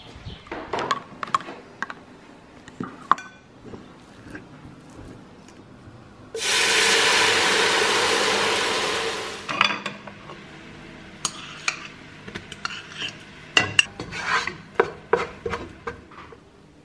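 Cooking oatmeal in a pan: a wooden spoon knocks and scrapes among the oats, then a steady hiss for about three seconds starting about six seconds in as milk is poured into the pan, followed by more clicks and clinks of utensils against the pan and dishes.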